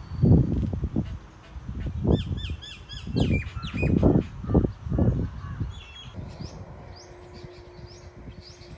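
Crows cawing, about eight loud calls in the first five seconds, with small birds chirping: a quick run of chirps about three seconds in and fainter high calls near the end.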